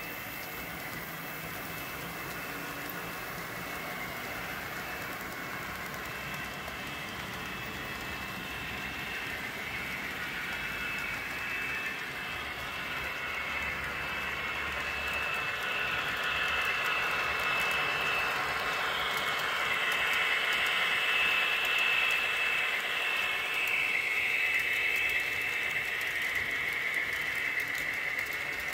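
Model trains running on track: a steady high whine of the locomotive motors over the rattle of wheels on the rails, growing louder as a train passes close about two-thirds of the way in.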